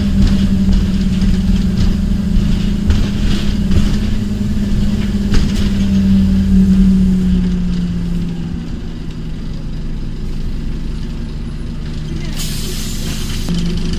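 Scania OmniCity double-decker bus heard from inside while it drives: a steady engine and drivetrain drone that drops in pitch and loudness about eight seconds in as the bus slows. Near the end comes a short burst of air hiss as it pulls up at a stop.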